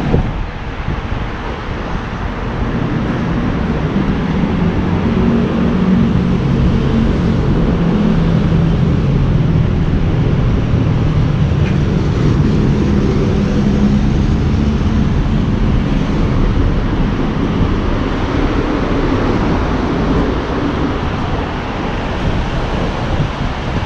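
Steady city traffic rumble with wind buffeting the microphone. A low engine or motor drone swells through the middle and fades again.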